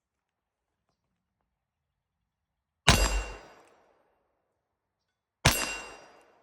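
Two .357 Magnum shots from a Ruger GP100 revolver, about two and a half seconds apart, each with a sharp crack and a metallic ring from the steel target that dies away over about a second.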